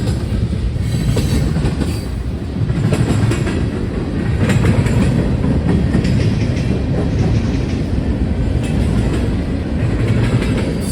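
CN freight train's cars rolling past, with a steady low rumble and irregular wheel clicks over the rail joints.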